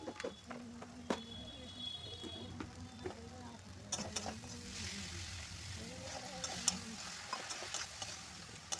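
A metal spatula stirs and scrapes sliced onions and ground spices around a kadhai, clicking against the pan, while the oil sizzles. The sizzle grows louder from about four seconds in as the spices are mixed into the hot oil.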